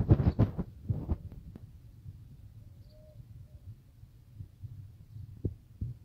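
Low rumbling with a cluster of thumps and knocks in the first second and a half, settling to a quieter steady rumble; a faint short call about three seconds in.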